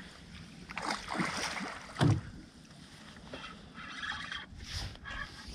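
Water splashing as a hooked pike thrashes at the surface beside the boat, with one loud thump about two seconds in.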